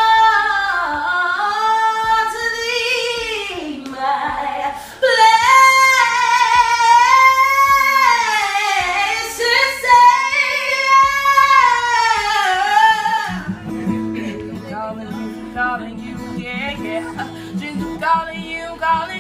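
A woman singing solo, powerful and loud, with long sliding runs that bend up and down in pitch. About 13 seconds in it gives way to quieter singing by another voice over a steady low accompaniment.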